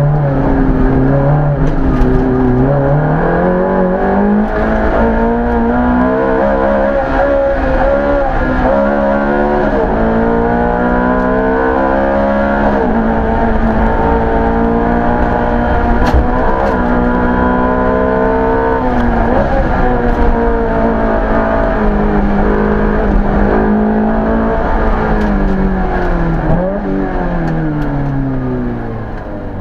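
Ferrari F430 GT3's V8 engine heard from inside the cockpit, revving hard through the gears: the pitch climbs again and again and breaks at each gear change, and it drops as the car brakes for corners. The engine eases off near the end.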